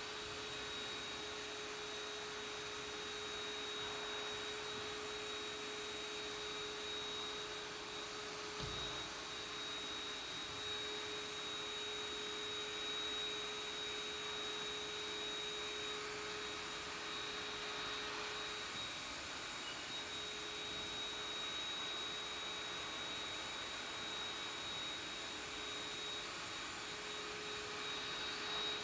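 A SpaceVac high-reach pole vacuum runs steadily, a constant rushing hiss with a low steady hum and a high steady whine. There is one dull low thump about nine seconds in.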